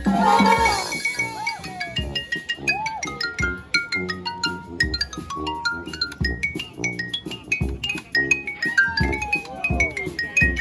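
Street brass band playing live: a pulsing bass line and drum hits under quick runs of short high notes, with swooping slides in pitch.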